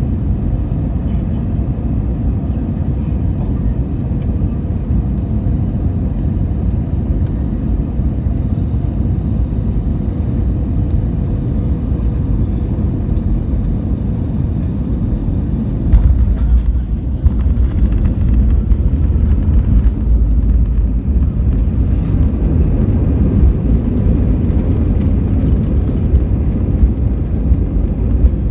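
Airbus A320 cabin noise on final approach: a steady rush of air and engines. About halfway through, the main wheels touch down with a jolt, followed by a heavier rumble of the landing roll on the runway.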